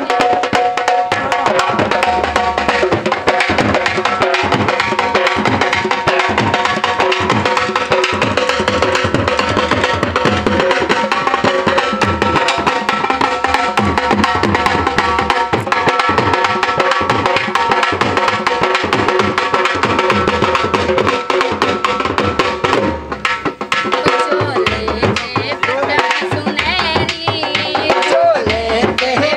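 Dhol drum beaten in a fast, steady rhythm over held melody notes: Punjabi folk dhol music. The drumming thins out briefly about two-thirds of the way through and again near the end.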